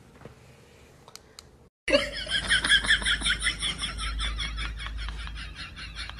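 High-pitched, rapid giggling laughter that starts suddenly about two seconds in, after a quiet stretch, and runs on as a fast string of short pulses.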